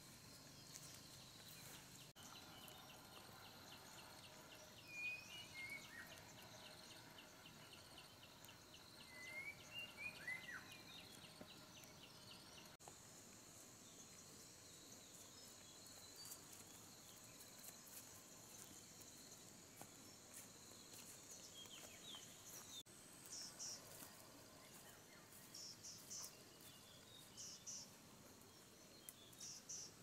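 Faint insect chorus with steady high-pitched trilling. A rapid ticking insect call runs through the first third, and a few short bird chirps come in early on. Clusters of short high pulses come near the end.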